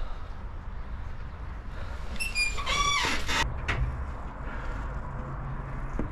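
A rooster crowing once, a call of about a second starting a little past two seconds in, over a low steady background rumble.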